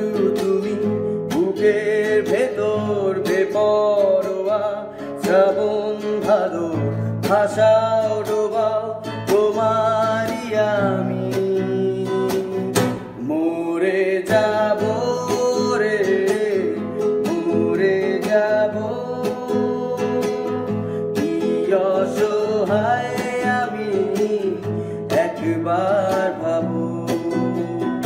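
Background music: a song played on acoustic guitar with a singing voice.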